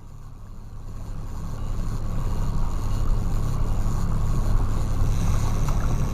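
Motorboat engine running, with wind and water noise. It gets louder over the first two or three seconds, then holds steady.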